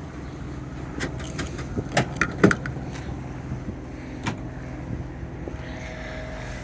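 Clicks and knocks of a pickup truck's door being handled and opened, the loudest knock about two and a half seconds in, over the steady idle of the 2013 Chevrolet Avalanche's remote-started engine.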